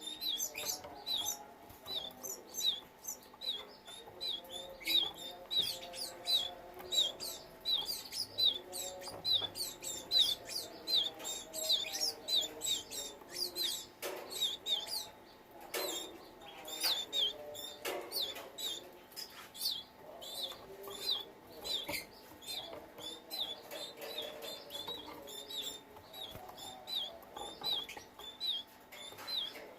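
Canaries chirping: quick, repeated short high chirps that run on without pause, with a few sharp clicks in the middle.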